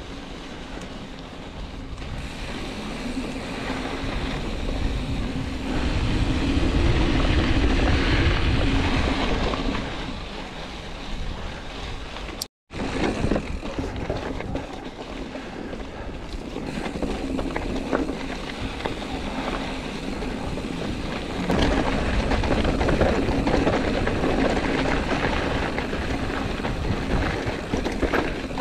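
Mountain bike riding over a dirt and gravel trail: wind buffeting the microphone over the rumble and crunch of tyres on loose stones and the rattle of the bike. The sound cuts out for a moment about halfway through, and it grows louder and rougher in the last several seconds as the ground turns rocky.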